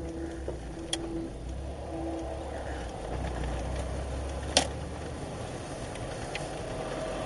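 A car's engine and road noise heard from inside the cabin as the car picks up speed, with the engine note rising near the end. Two sharp knocks come through, the louder one about four and a half seconds in.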